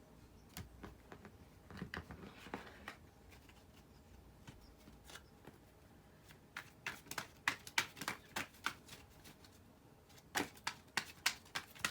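A deck of tarot cards being handled and shuffled: light, irregular card clicks, sparse at first and then in quick runs in the second half.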